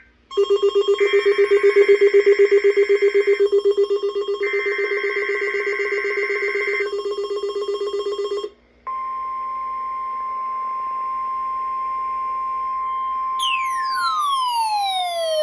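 Weather radio alert tones. First comes a rapidly pulsing alarm tone for about eight seconds, with two longer steady higher-pitched passages over it. After a brief dropout comes the steady NOAA Weather Radio warning alarm tone that opens the weekly test. Near the end, a few falling whistle-like sweeps glide down over the steady tone.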